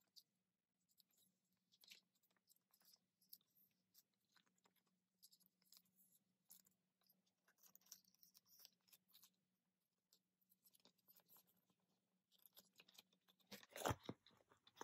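Faint scratchy rustling and clicking of photocards in plastic sleeves being slid into binder pocket pages, with a few louder knocks of handling near the end.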